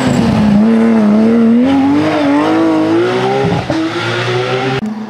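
Porsche 911 GT3 rally car's flat-six engine accelerating hard out of a hairpin, its pitch climbing steadily, dipping briefly at a gearshift about three and a half seconds in, then climbing again. Near the end it cuts off abruptly to a steadier engine note from another car.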